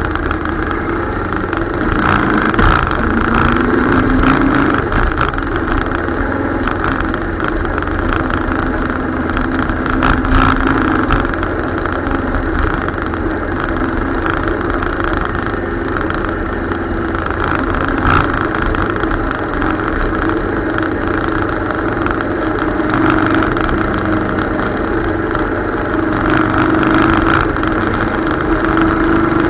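Motorcycle engine running while riding, its pitch rising a few seconds in and shifting with the throttle, over steady wind and road noise.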